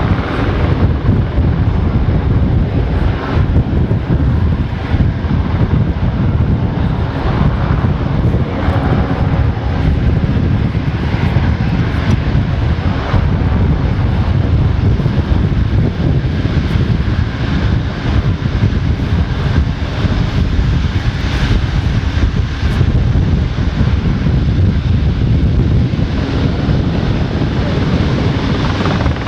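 Aircraft engines running: a loud, steady engine noise, heaviest in the low end, with a hiss above it.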